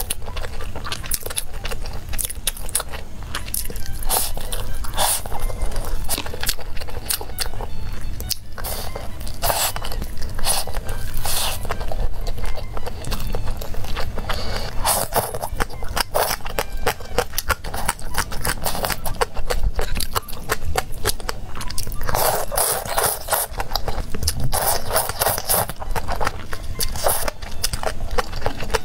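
Close-miked eating sounds: wet chewing and biting with frequent sharp mouth clicks and smacks as spicy hotpot noodles, fish cakes and green chili peppers are eaten, with slurping as a chili and noodles are sucked in near the end.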